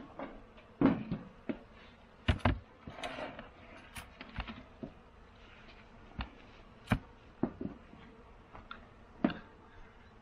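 Irregular sharp clicks and knocks, a dozen or so, from handling the wooden parts of a beehive as it is closed up.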